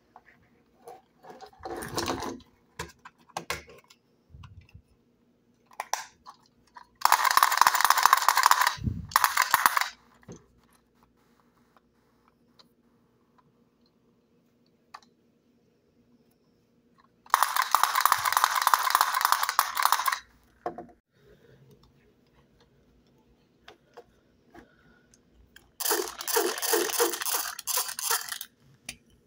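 Hard plastic fast-food toys handled on a wooden table: scattered small clicks and knocks. Three loud noisy bursts of two to three seconds each, with a rattle-like texture, come about seven, seventeen and twenty-six seconds in.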